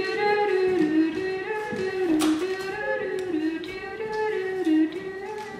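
Background music: a tune of held notes that step up and down in pitch.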